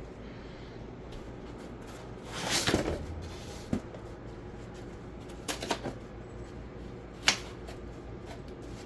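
Handling noises while fitting parts onto an electric scooter: a brief rustle, then a few scattered clicks and knocks of plastic and metal parts, the sharpest about seven seconds in.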